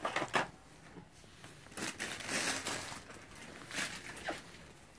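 Straw bedding rustling and crunching as it is handled and things are shifted about in it, with two sharp clicks just after the start and a longer rustle in the middle.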